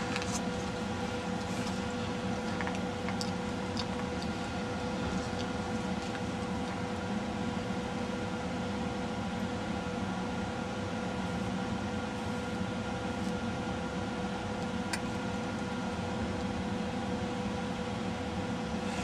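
Steady machine hum with a faint steady tone, like a small motor or fan running, with a few faint light ticks.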